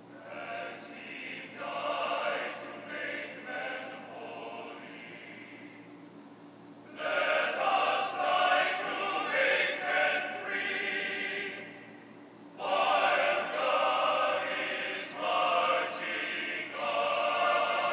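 Background music with a choir singing in swelling phrases, growing louder about seven seconds in.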